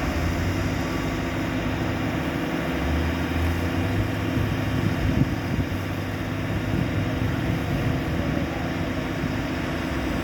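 A big crane's engine running with a steady hum.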